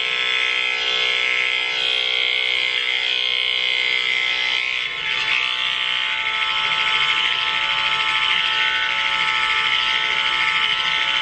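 Electric hair clippers running with a steady buzz as they cut hair, the tone shifting slightly about five seconds in.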